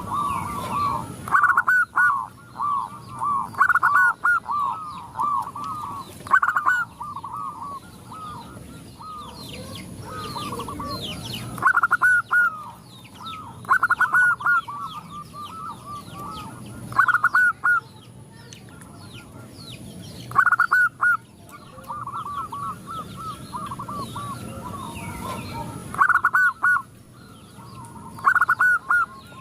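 Several zebra doves (perkutut) cooing, each phrase a quick run of bubbly staccato notes, phrases coming every couple of seconds and overlapping as the birds answer one another. Thin high chirps of smaller birds sound over them.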